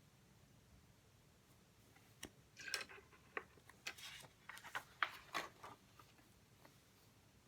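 Faint room tone, with a run of light clicks, taps and short scratches from about two seconds in until a little past six seconds: small handling noises at a study desk.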